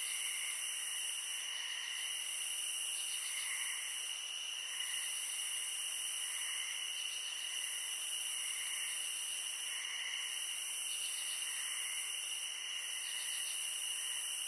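A steady chorus of insects chirping and buzzing, with a softer chirp pulsing about once a second.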